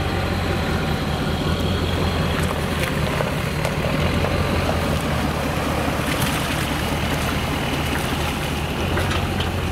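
Engines running at a steady idle, a low even hum that does not change.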